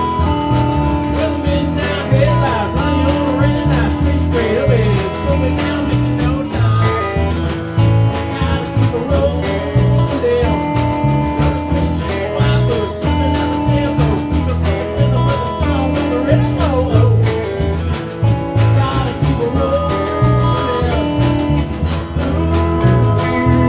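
Live country band playing a song: strummed acoustic guitar over a steady bass rhythm, with a wavering melody line on top.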